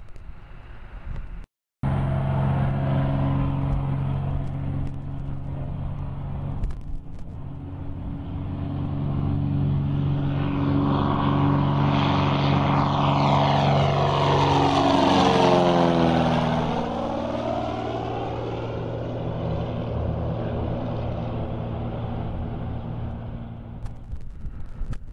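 Single-engine propeller airplane's piston engine at full takeoff power, humming steadily after a brief break near the start. It grows louder as the plane climbs out and passes overhead, its pitch dropping as it goes by, then fades as it flies away.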